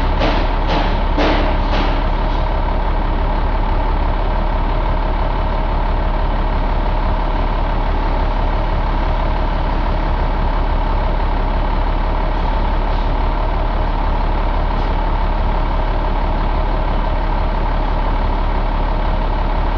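Ford 7.8-litre inline-six diesel engine idling steadily, with a steady whine running through the engine sound. A run of about five sharp knocks, roughly two a second, sounds in the first two seconds.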